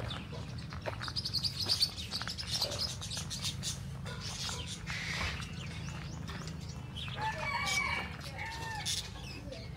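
Several birds calling: a run of high chirping calls about a second in, another burst around five seconds, and curling squawks from about seven to eight seconds in, over a low steady hum.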